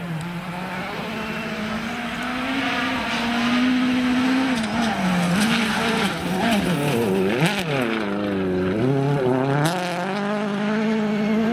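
Ford Fiesta RS WRC rally car's turbocharged four-cylinder engine at full speed on gravel, its pitch rising and falling through gear changes. About seven seconds in it drops sharply and climbs again, with sharp cracks around it.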